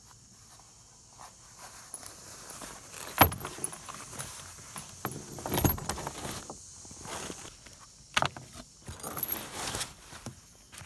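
Heavy cotton canvas of a bell tent being shifted and dragged over a wooden floor, rustling and brushing over the microphone, with irregular knocks; it starts about two seconds in, and the sharpest knock comes about a second later.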